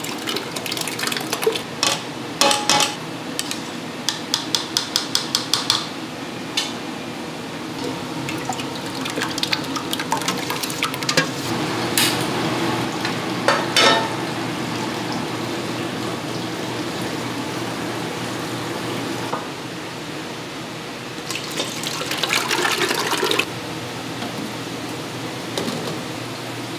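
Thick sauce being poured and stirred in metal cooking pots, with scattered clanks of the pots and utensils and, a few seconds in, a quick run of about ten light ticks. A steady kitchen hum runs underneath.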